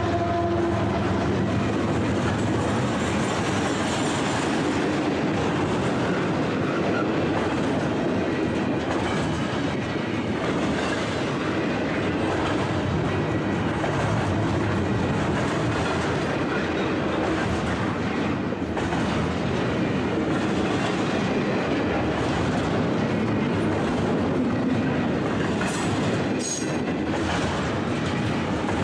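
Double-stack container train's freight cars rolling past close by: a steady rumble and clatter of steel wheels over the rails. A brief high wheel squeal comes near the end.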